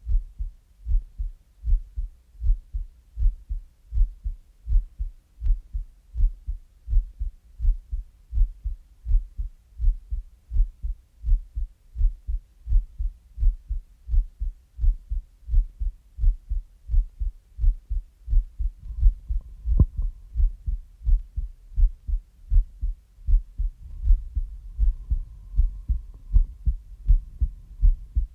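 A heartbeat, heard as if with an ear on the chest: a steady, even rhythm of low thumps. A faint steady tone joins in over the last few seconds.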